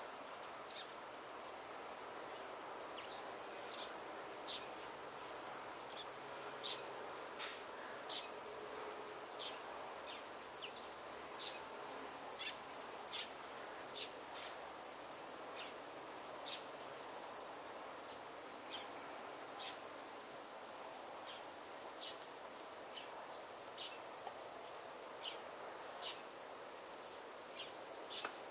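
Summer insects shrilling in a steady high-pitched drone, with short chirps repeating about once a second; near the end a second, higher-pitched drone starts abruptly.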